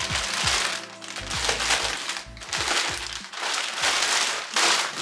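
Packaging being handled and unwrapped, rustling and crinkling in about five bursts, roughly one a second, over background music.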